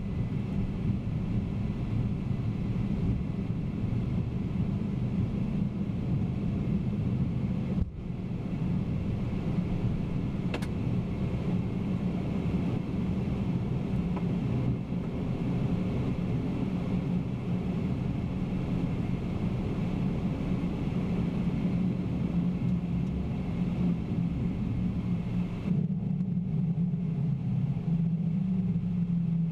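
Steady low rumble of air and engine noise on the Boeing 767-300ER's flight deck in flight, dipping briefly about eight seconds in, with a faint click a little after.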